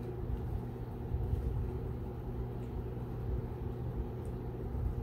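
Steady low background hum with a faint drone, broken only by a few faint ticks.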